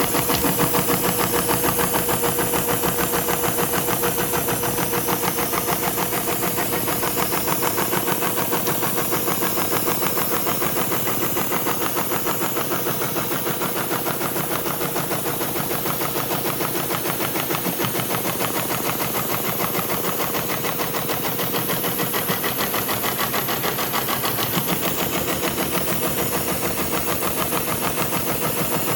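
SEWPRO 273-6040 heavy-duty programmable sewing machine stitching steadily with heavy thread, its needle running in a fast, even rhythm.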